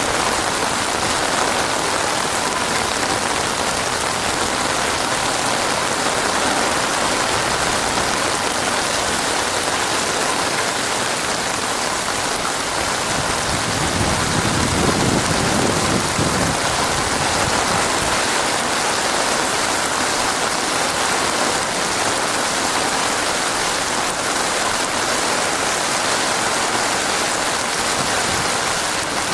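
Heavy rain pouring steadily, a dense even hiss of rainfall, with a short low rumble about halfway through.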